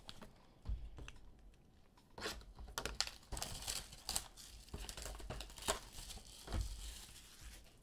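Clear plastic shrink wrap being torn and pulled off a trading-card box, crinkling and crackling in quick irregular snaps from about two seconds in.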